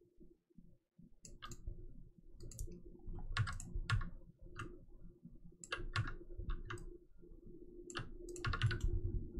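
Irregular clicks of a computer mouse and keyboard, a dozen or so scattered over several seconds, with a faint steady hum underneath.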